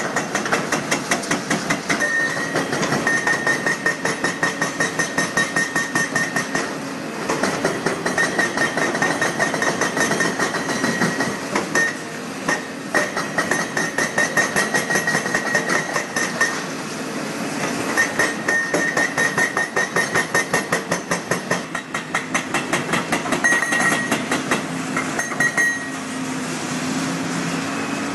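Excavator-mounted hydraulic breaker hammering reinforced concrete in runs of rapid blows a few seconds long with short pauses between, over the steady running of the excavator's diesel engine. A ringing metallic tone accompanies the hammering.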